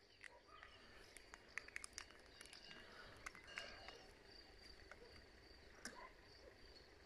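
Near silence: faint rural outdoor ambience with scattered short, high chirps and ticks from small animals.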